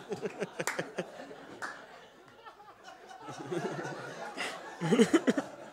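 Audience laughing and chuckling at a roast joke, dying down in the middle and rising again briefly near the end.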